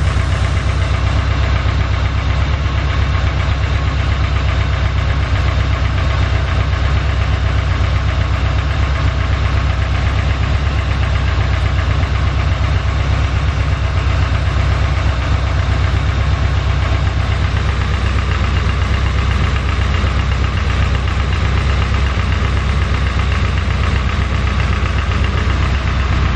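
A C4 Corvette's V8 engine idling steadily while its freshly filled cooling system is bled of air at the bleed valve.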